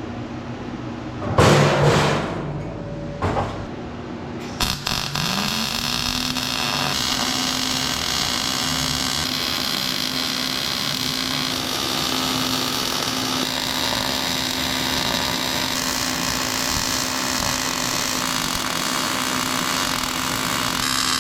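Wire-feed MIG welder running a vertical bead on sheet steel: a steady arc crackle and hiss, with a steady hum under it, starting about four and a half seconds in after two short loud noises.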